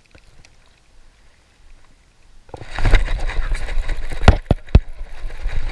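A cast with a baitcasting rod and reel: faint handling at first, then about halfway in a loud rush of noise as the rod swings and line goes out, with three sharp clicks near the end.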